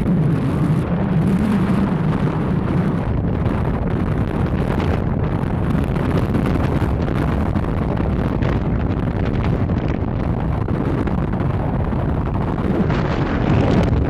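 Wind rushing over the microphone of a phone held out of a moving car's window, with steady road noise underneath.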